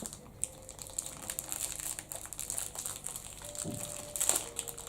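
Plastic wrapping crinkling lightly as it is handled, with a louder crackle about four seconds in.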